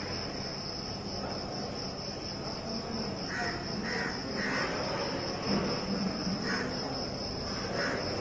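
Crickets trilling in one steady, continuous high-pitched tone over a low hum of background noise.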